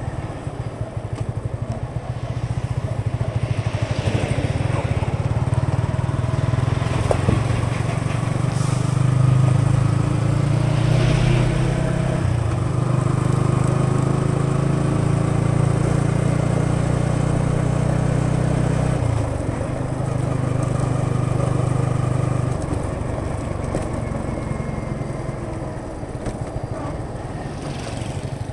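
Yamaha XSR 155's single-cylinder engine and exhaust running under way, the note building over the first several seconds and holding steady, then dropping in level twice in the last third.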